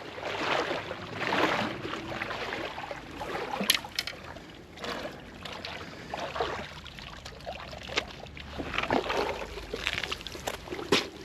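Water lapping and sloshing in a run of short swells about a second apart, with a sharp click a few seconds in.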